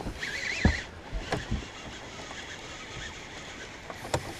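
A hooked bass splashing and thrashing at the surface beside a fishing boat while it is played on the rod, with a few sharp knocks. A short warbling whistle sounds near the start.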